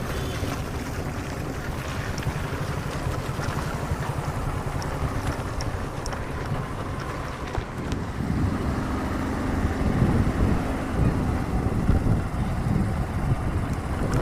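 Low rumble of vehicle engines with wind buffeting the microphone, getting louder from about eight seconds in.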